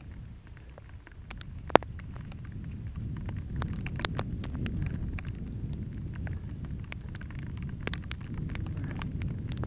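Mountain bike rolling along a rough trail: a low rumble of tyres and wind on the microphone that builds over the first few seconds, with scattered clicks and rattles from the bike and loose stones, one sharp click about two seconds in.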